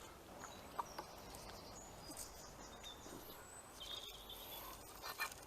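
Faint outdoor ambience with scattered short, high bird chirps and a few small sharp clicks.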